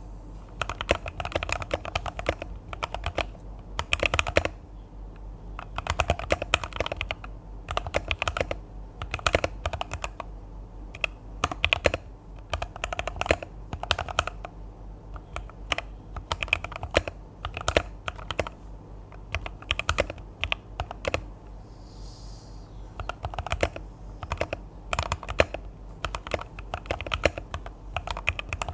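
Typing on a Keychron K6 mechanical keyboard with an aluminum frame, lubed silent red linear switches, stabilized keys and Kon Mono keycaps. The keystrokes come in quick runs of about a second, with short pauses between them.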